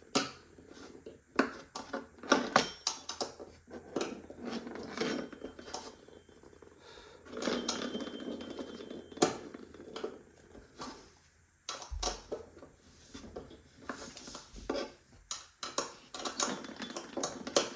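Irregular clicks, clinks and knocks of a hand tool turning and tightening screws in a wooden bed frame during assembly, with a stretch of denser rattling about halfway through.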